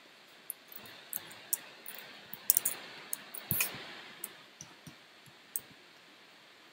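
Scattered sharp clicks and taps of a computer keyboard and mouse as tools and zoom are switched, with a brief soft scratchy rustle in the middle.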